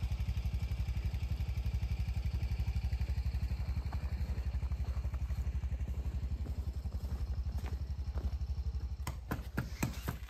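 A small engine running steadily with a low, fast-pulsing rumble. A few sharp knocks come near the end.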